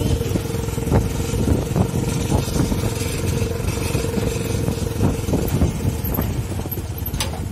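Motorcycle engine running steadily while riding over a rough grass track, with frequent knocks and rattles throughout and a sharp click near the end.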